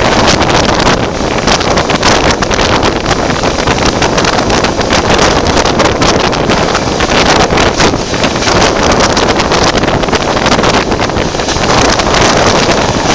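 Heavy wind buffeting the microphone held at the open window of a moving passenger train, over the train's running noise on the track.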